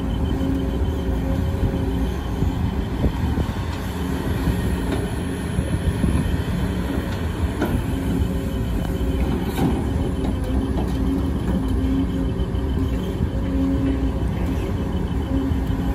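Sumitomo SH210 hydraulic excavator working: its diesel engine and hydraulics drone steadily under load, with a humming tone that swells and dips as the arm moves. A few sharp knocks come from the bucket scraping rock and dirt and dumping it into a dump truck.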